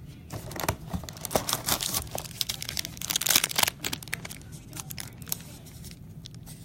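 Plastic trading-card packaging crinkling and tearing as cards are unpacked and handled, with quick light clicks; the crinkling is busiest and loudest in the first half, then settles to quieter handling.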